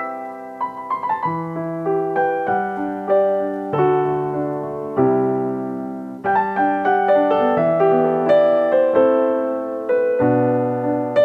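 Background music: a solo piano playing a slow melody over sustained chords.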